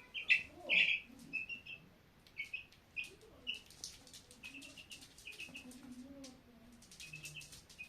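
Chicks about two weeks old peeping: many short, high cheeps in quick runs, loudest in the first second and continuing more softly throughout.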